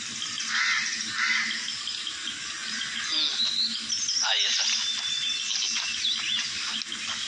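Outdoor ambience: birds chirping and calling over a steady high hiss, with a flurry of short rising and falling whistles in the middle.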